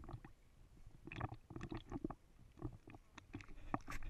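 Sea water sloshing and splashing against a camera held at the waterline, in irregular low splashes, while a Bichon Frise dog paddles close by.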